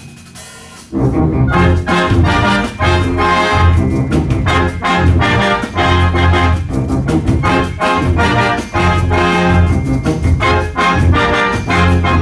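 A high school concert band playing live, with brass, saxophones, clarinets and drums. The music dies down at the start, then the full band comes back in loudly about a second in with punchy, rhythmic chords.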